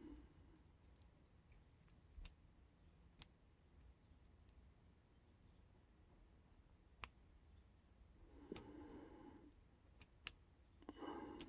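Pick and tension tool working the pin tumblers of a Chubb rekeyable aluminium padlock: a handful of faint, scattered clicks as pins are probed and set, over near silence.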